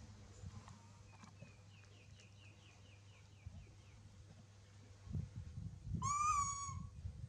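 A small bird gives a quick trill of about a dozen short falling chirps, roughly four a second. About six seconds in comes one loud, clear animal call, just under a second long, rising slightly and then falling, over low scuffling rumble.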